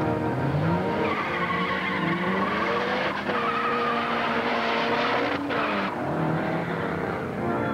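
Car engine revving up hard over about two seconds and holding high revs while the tyres squeal, then the revs drop away about six seconds in.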